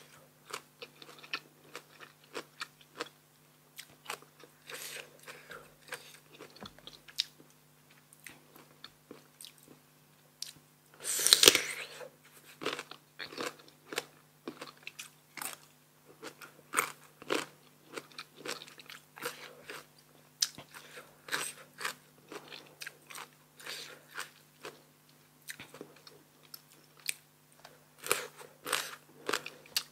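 Crisp raw sour green mango (mamuang bao) being bitten and chewed close to the microphone: a steady stream of sharp crunches, with one loud bite about eleven seconds in.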